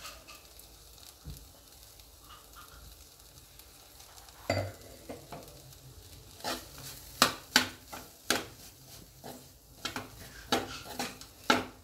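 Metal spoon scraping and knocking against a black kadai while ground peanut powder is stirred into a cluster-bean stir-fry, over a faint sizzle from the pan. The spoon knocks start about four seconds in and come irregularly, a dozen or so.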